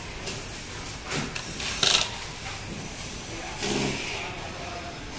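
Corded electric screwdriver whirring in a few short bursts, about a second, two seconds and near four seconds in, as screws are driven into LED display modules, over a steady background hum.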